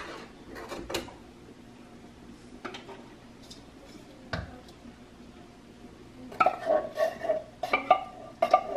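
Wooden spoon scraping and knocking inside an upturned tin can of condensed cream of chicken soup to work the soup out into a bowl. A few scattered clicks at first, then, from about six seconds in, a quick run of knocks with a metallic ring.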